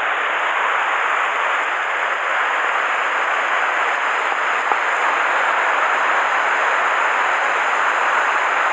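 Mountain stream running over rocks through small riffles: a steady, even rush of water.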